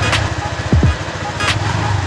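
Background music with a slow, even drum beat, kick thumps and snare-like hits, over the Honda PCX 150's single-cylinder engine idling after a fresh oil change.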